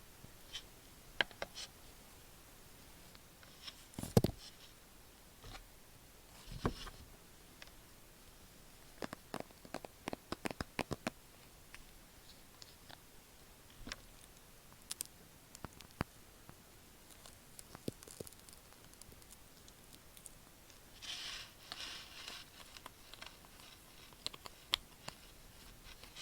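Close-miked ASMR handling sounds on an earphone microphone: sparse soft taps and clicks, a quick run of clicks about ten seconds in, and a short scratchy rustle near the end.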